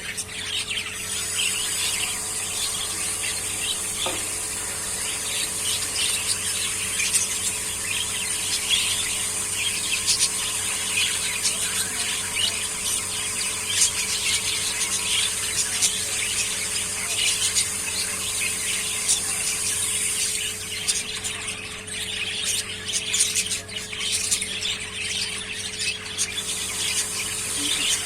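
Caged parrots chirping and chattering continuously, a dense flurry of shrill, overlapping short calls, over a faint steady hum.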